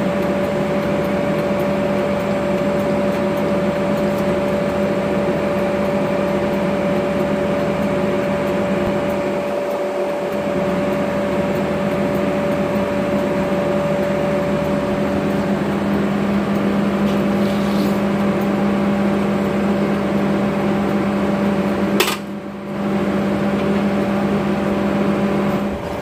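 A steady machine hum with a constant whining tone over a lower drone, broken about 22 seconds in by a single sharp click and a brief dip in level.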